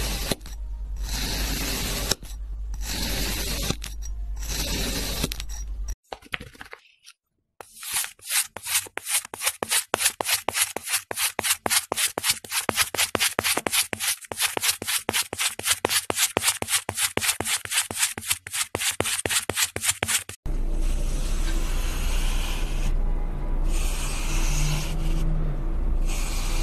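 Crunchy sand being cut and poked: first a knife slicing down through the sand in long crunchy strokes about every two seconds. Next comes a run of sharp rapid crunches, about four a second, as a stick tool stabs holes into a sand block. After a sudden change about twenty seconds in, a wire loop tool rasps as it carves grooves in the sand.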